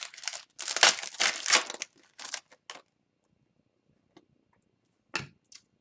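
Foil trading-card pack wrapper crinkling and tearing as it is opened, for about three seconds, followed by a few light clicks.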